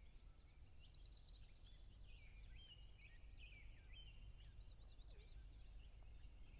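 Faint birdsong from several small birds: quick chirps, a rapid trill about a second in and short whistled notes, over a steady low rumble.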